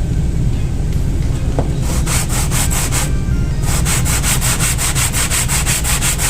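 Brake pad rubbed back and forth on sandpaper to level its friction surface: quick, even rasping strokes start about two seconds in, stop briefly around three seconds, then continue at several strokes a second.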